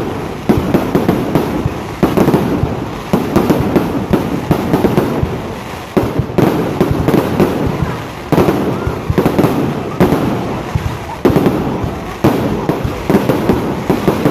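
Fireworks going off in rapid, continuous volleys of bangs and crackling, a fresh salvo starting every second or two.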